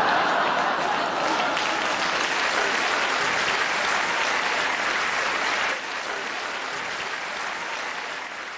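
Audience applauding and cheering after a punchline, dropping to a lower level about six seconds in before the audio cuts off.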